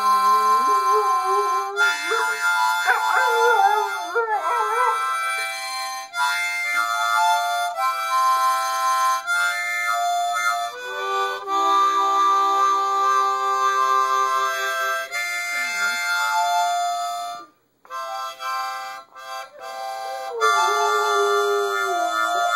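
Harmonica played in long held chords, with a dog howling along over it. The howls waver up and down in pitch at the start, a few seconds in, and again near the end. The harmonica breaks off briefly about two-thirds of the way through.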